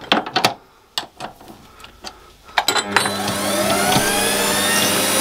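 A few knocks and clicks, then about three seconds in the Warco WM180 mini lathe's motor starts. It whines rising in pitch as it spins up to about 450 rpm, then runs with a steady hum and high whine.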